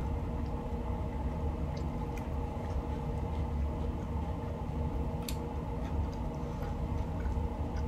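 Quiet chewing of plant-based burger, with a few faint sharp mouth clicks, over a steady low hum.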